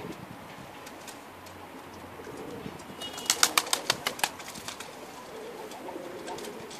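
Kelkit tepelisi pigeons cooing on a rooftop, with one pigeon taking off about three seconds in: a quick run of about ten sharp wing claps and flaps lasting just over a second.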